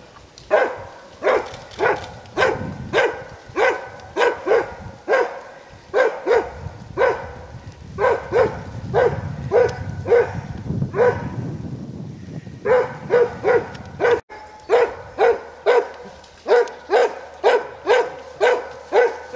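Plott hound barking steadily at a wild boar it is holding at bay, about two barks a second, with a short break around twelve seconds in.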